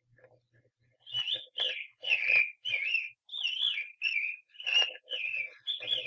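A man whistling an imitation of a songbird's song: about ten quick warbling phrases in a steady rhythm, starting about a second in. A low hum from the old 1944 recording sits under each phrase.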